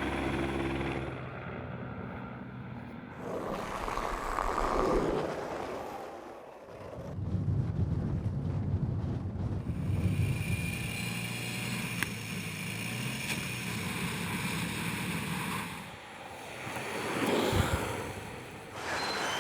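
Motor vehicles running on a road with wind on the microphone. A vehicle whooshes past about four seconds in and again near the end, with a low engine rumble between.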